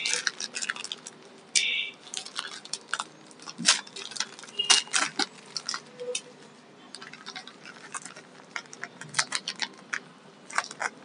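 Plastic courier mailer bag crinkling and rustling in irregular crackles as it is handled and cut open along its edge with scissors.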